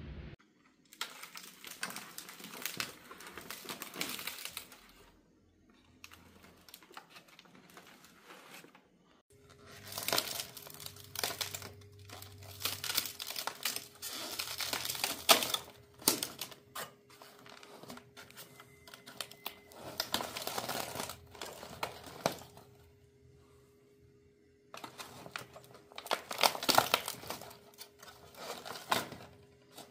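Aluminium foil crinkling and crackling in hands as a charred foil parcel of baked fish is unwrapped, in several irregular stretches with short pauses between.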